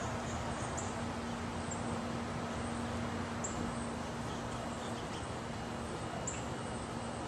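Backyard ambience: a steady hiss with a low steady hum underneath, and a few faint, very short high-pitched bird chirps now and then.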